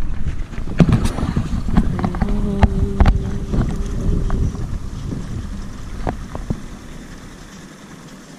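A canoe's small 6-horsepower Suzuki outboard runs as the boat pulls away from the dock, with wind on the microphone. A scatter of sharp knocks and clatters comes in the first few seconds. The sound then grows steadily fainter over the second half.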